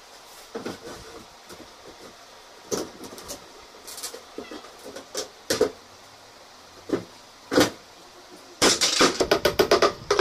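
Particleboard furniture panels knocking against each other as they are fitted, a few separate knocks, then near the end a quick run of hammer blows, about six a second, on the laminated particleboard cabinet.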